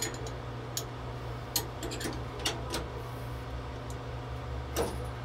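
Scattered metallic clicks and small knocks as the Ansul fire suppression control head's release mechanism is reset by hand after a dry-fire test, over a steady low hum.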